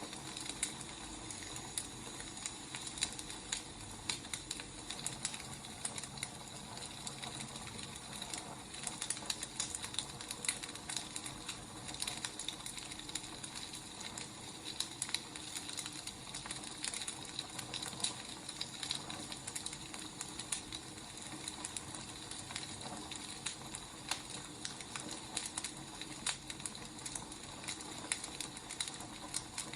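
Burning firewood crackling: irregular sharp snaps and pops over a steady hiss.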